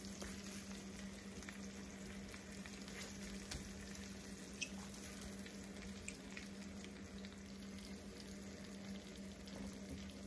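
Honey barbecue glaze sizzling faintly in a cast-iron skillet around the turkey wings, with a few small pops and one sharper click about halfway through, over a steady low hum.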